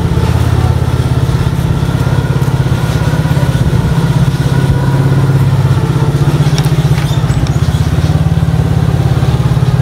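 Small motor vehicle engine running steadily at close range, with a fast, even pulsing beat.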